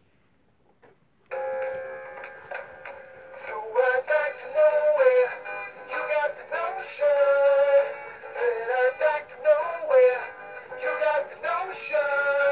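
Gemmy Tommy the Freshwater Trout animatronic singing fish playing its song, a male singing voice over a backing track through the toy's small speaker. It starts about a second in, after a short silence, and sounds thin, with no bass.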